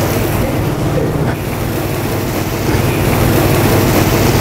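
Steady drone of a commercial kitchen's ventilation, with a low hum under it.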